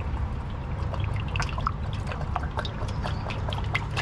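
Hydraulic fluid pouring into the machine's hydraulic tank, gurgling and splashing in quick irregular drips and glugs over a steady low rumble.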